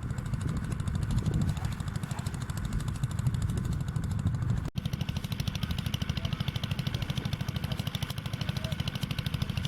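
A small engine running steadily, its rapid, even pulses heavy in the low end, with a momentary dropout a little under halfway through.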